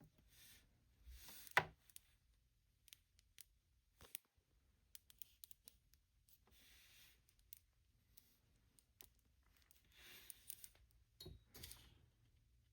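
Faint scattered clicks and soft rustles of a plastic action figure being handled and turned over, with one sharper click about a second and a half in.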